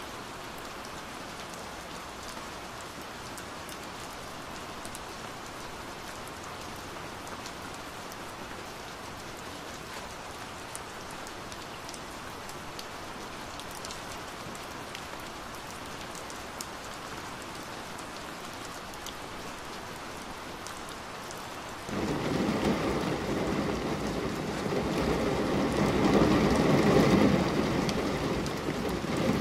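Steady rain pattering on a window pane, with faint ticks of single drops. Near the end the sound jumps louder, and a deep rumble of thunder builds in under heavier rain.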